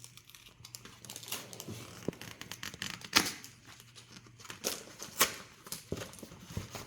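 Lego set packaging, the wrapped folder holding the instruction booklets, being torn open and handled: irregular crackles and crinkling snaps, the loudest about three and five seconds in.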